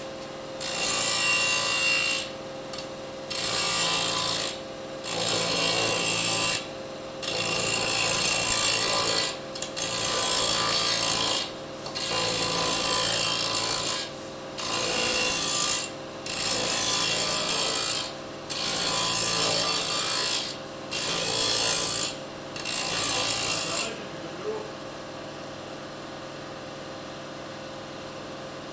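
Disc saw cutting aluminium in a quick series of short cuts, about eleven, each lasting one to two seconds with brief pauses between. The cuts stop about 24 seconds in, leaving only a steady hum.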